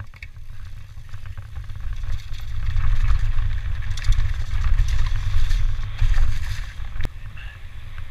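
Wind buffeting a helmet-mounted GoPro's microphone as a mountain bike rides fast down a rough dirt trail, with tyre noise and rattling from the bike. Loudest through the middle, easing near the end as the bike reaches smooth tarmac.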